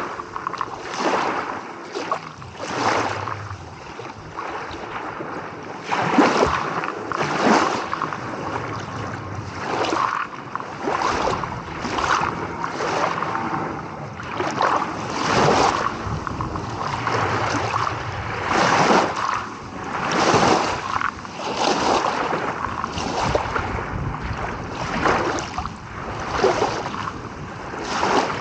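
Small sea waves washing and splashing against the shore, a surge every second or two over a steady wash of water.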